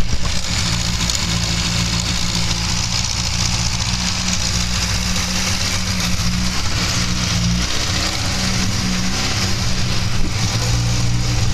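BMC A-Series engine (an 8G-numbered replacement unit) running steadily in a Morris Minor during a test run, running okay.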